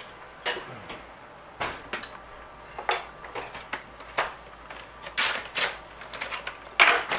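Thick roasted red pepper coulis simmering in a pan, bubbles breaking at the surface with irregular pops, the loudest near the end.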